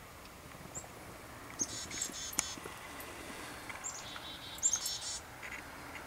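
Black-capped chickadees giving chick-a-dee-dee-dee calls, used here as a warning call: a run of about five harsh, repeated dee notes about a second and a half in, then a second call with high opening notes and another string of dee notes around four to five seconds in. The more dee notes in the call, the higher the threat the birds signal.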